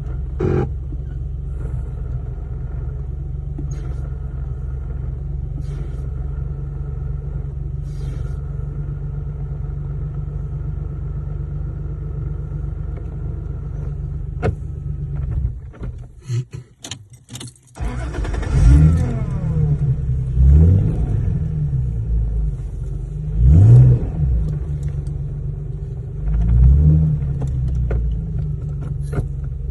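Lexus GS 300's inline-six engine running steadily, then after a short break it rises and falls in pitch four times as the car accelerates and eases off.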